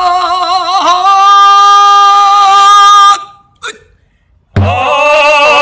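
A singing voice holding one long note for about three seconds, wavering at the start and lifting slightly in pitch about a second in, then breaking off. After a short gap a fuller, lower-sounding sung note starts near the end, as part of a vocal exercise imitating traditional 'Goguryeo sound' singing.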